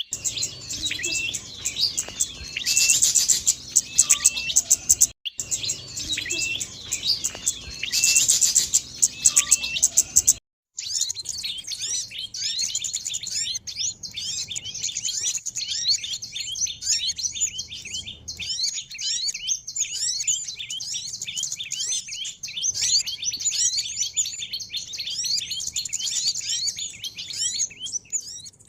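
Recorded lure calls of small birds: a dense chorus of rapid, high chirps and twitters from many birds. In the first ten seconds a short stretch plays twice, each ending in a brief silent break. After that the chirping runs on without a break.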